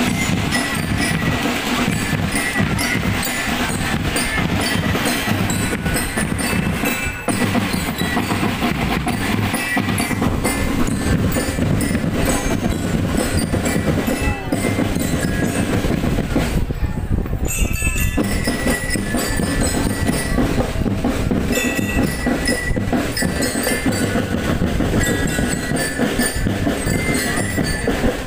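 Marching drum band playing: snare, tenor and bass drums keep up a dense, steady beat under a melody on glockenspiel-like bell lyra.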